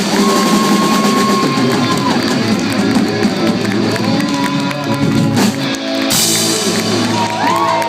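Live rock band playing: electric guitar and drum kit, with long held high notes that slide up and down, and arching pitch bends near the end.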